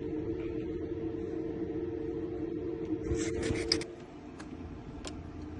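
A steady hum that stops about four seconds in, with a quick run of sharp metallic clicks just before it stops and a couple of single clicks after, typical of a key working in a car door lock.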